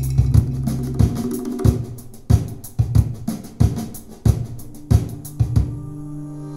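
Recorded music with a steady drum-kit beat (bass drum, snare and hi-hat) played back through an IKEA Symfonisk table-lamp Sonos speaker. The drums drop out near the end, leaving held notes.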